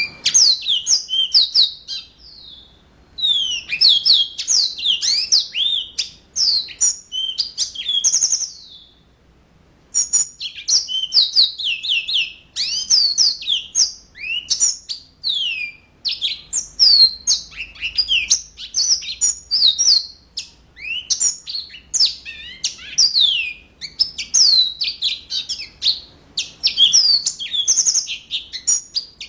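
Yellow-fronted canary (mozambik) singing a fast, vigorous song of rapid chirps, sweeping whistles and trills, with short breaks about two seconds in and again around nine seconds in.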